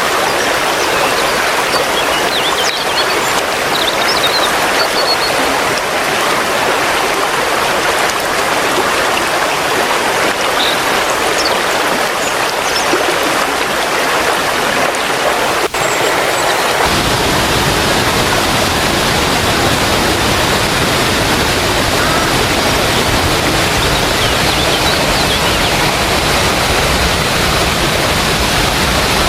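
Waterfall rushing, a steady, loud hiss of falling water. A brief click comes about 16 s in, and from about 17 s a deeper rumble joins underneath.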